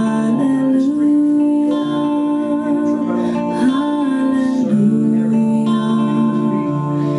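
Music: a song with strummed acoustic guitar under a slow melody of long held notes that glide from one pitch to the next.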